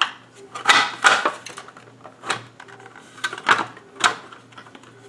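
Hard plastic cover panel of an Elmo 16-CL 16mm projector clicking and knocking against the projector body as it is pressed into place by hand: a string of sharp clicks and taps, loudest around a second in.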